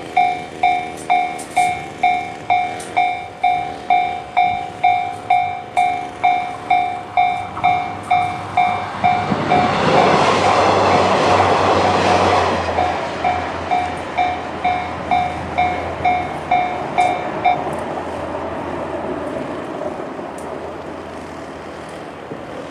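Japanese level crossing's electronic warning bell (the JR standard tone) dinging at about two strokes a second while a three-car KiHa 40/KiHa 48 diesel railcar train passes, loudest about ten to thirteen seconds in. The bell stops about seventeen seconds in and the train's sound fades away.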